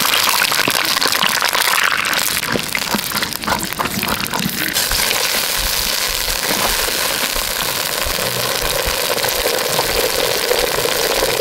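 Fresh green peas poured into water in a clay pot: a dense pattering splash for the first four or five seconds, which settles into a steady hiss.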